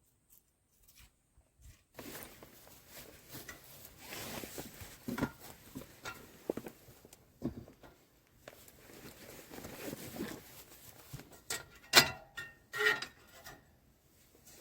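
Rustling and handling of objects with scattered light knocks, then a few sharp clinks and knocks about twelve and thirteen seconds in, the loudest with a brief ring.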